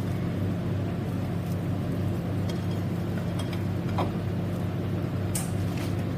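A steady low hum with a few faint clicks of a knife against a plate, about four and five and a half seconds in, as toast is cut into triangles.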